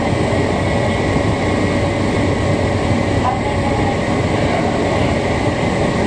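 Hankyu 6000 series resistance-controlled electric train running at steady speed, heard from the driver's cab: a continuous rumble of wheels on rail with a thin steady whine.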